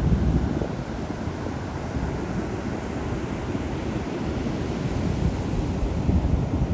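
Steady wind noise on the microphone over the wash of ocean surf.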